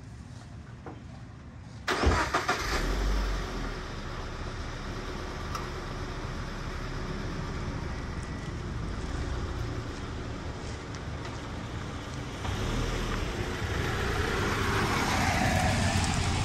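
A 2017 Subaru BRZ's flat-four engine cranks and starts about two seconds in with a loud flare, then settles into a steady idle. Near the end it grows louder as the car pulls out and passes close by.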